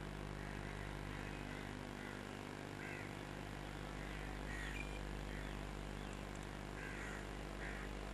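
Quiet outdoor ambience: a steady low hum with faint, short, high calls scattered through it.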